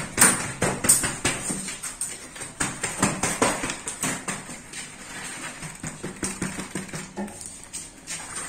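Thin steel reinforcing rods clinking and knocking irregularly as they are handled and laid in place for a concrete slab, the knocks thickest in the first few seconds and sparser after.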